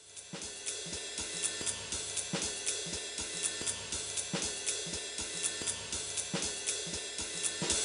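Background music with a steady drum-kit beat, hi-hat and cymbal ticking throughout, fading in at the start.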